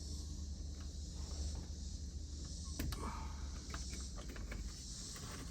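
A few faint clicks and scrapes of plastic A-pillar trim being handled, a little past the middle, over a steady low hum and hiss.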